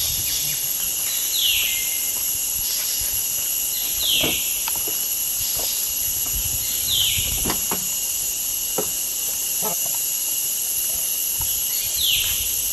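Steady high-pitched drone of insects in the forest, with a short falling call repeating about every three seconds.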